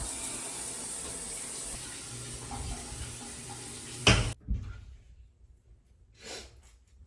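Water running steadily from a tap, shut off about four seconds in with a clunk, followed by a few faint knocks.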